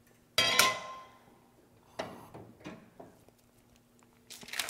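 A stainless saucepan set down on the stove with a sharp clank that rings briefly, followed by a lighter knock and a few soft taps of kitchenware. Rustling handling noise rises near the end.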